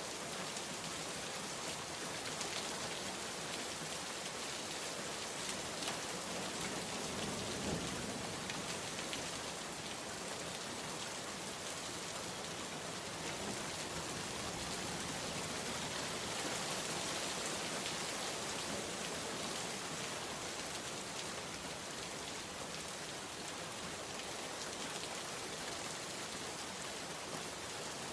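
Steady rain falling on a surface, an even hiss of many drops with scattered individual drop ticks.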